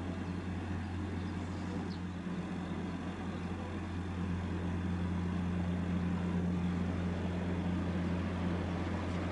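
Low, steady drone of a large wood chip carrier's engine as the ship passes, over a haze of outdoor noise, growing slightly louder about four seconds in.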